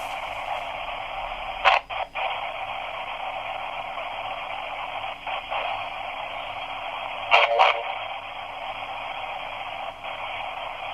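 Spirit box scanning radio frequencies: a steady band of static hiss, broken by short bursts of sound about two seconds in and again about seven and a half seconds in.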